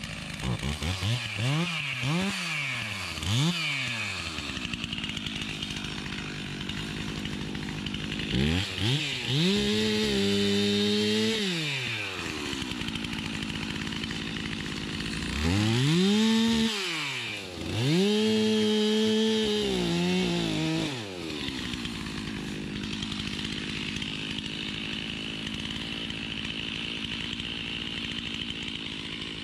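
Two-stroke chainsaw running: three quick throttle blips in the first few seconds, then revved to full speed and held three times while cutting down a small oak sapling, its pitch dipping a little during the last cut, and dropping back to idle between cuts and for the last several seconds.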